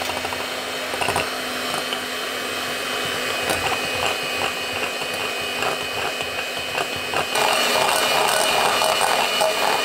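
Electric hand mixer running, its wire beaters whipping egg whites into meringue in a glass bowl: a steady motor whine with light clicks. It gets louder about seven seconds in.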